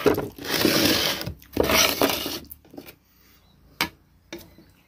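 A plastic bowl scraped across a wooden tabletop in two drags, the first about a second long and the second shorter, then a couple of light clicks of a spoon on the dishes near the end.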